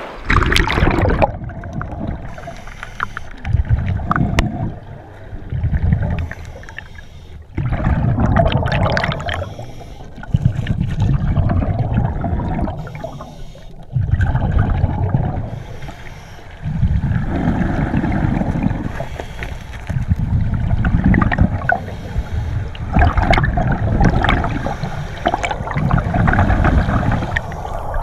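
Underwater sound of a scuba diver breathing through a regulator: rumbling bursts of exhaled bubbles about every three seconds, over gurgling river water.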